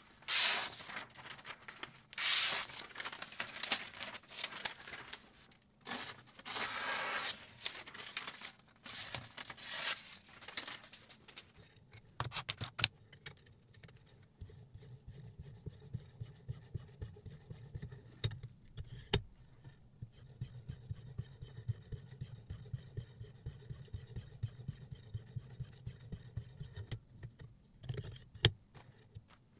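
Sheets of paper being sliced against a freshly sharpened kitchen knife held in a sharpening-system clamp: several crisp rustling cuts over the first ten seconds or so. After that, quicker light clicks and scrapes of the sharpener's metal guide rod and clamp being handled over a low hum, in footage sped up three times.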